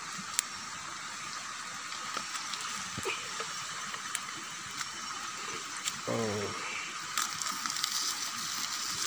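Open wood fire under a hanging cooking pot, crackling with a few scattered sharp pops over a steady hiss.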